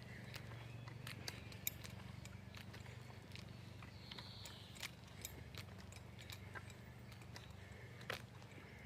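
Footsteps of someone walking on a path, irregular light clicks over a low steady rumble, with faint bird chirps now and then.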